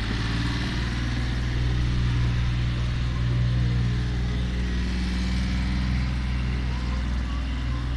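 Outboard motor of a canal tour boat running steadily as it passes under the bridge, an even low hum.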